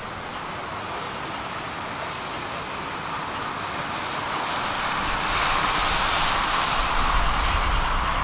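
City traffic noise, with a vehicle's rumble building louder from about five seconds in as it approaches.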